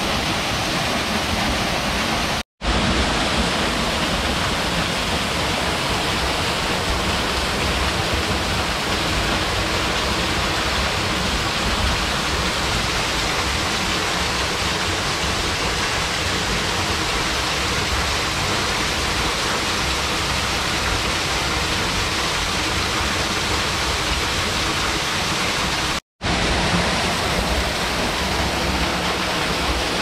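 Waterfall pouring down a narrow rock chute into a shallow pool, a steady rush of water. The sound cuts out for a split second twice, about two and a half seconds in and near the end.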